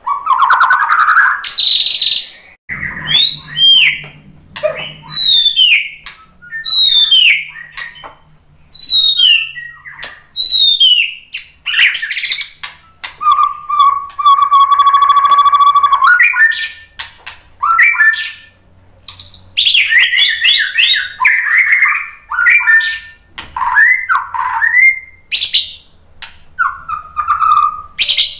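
White-rumped shama singing loudly in separate whistled phrases. Repeated falling whistles come first, then a long held note about halfway through, then quicker, more varied phrases.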